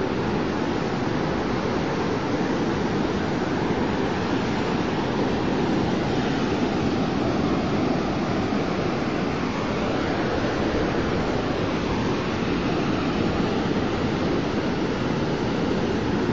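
Steady rush of sea surf breaking on the shore, mixed with wind.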